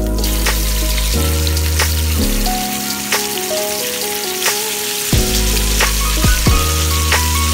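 Marinated pork chops frying in hot oil in a pan: a steady sizzle with occasional sharp pops and spatters. Background music with a prominent bass line plays over it.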